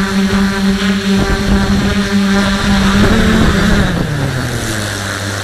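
Electric motors and propellers of a DJI F450 quadcopter setting down: a steady hum, a brief rise in pitch about three seconds in, then the pitch falls away to a low idle.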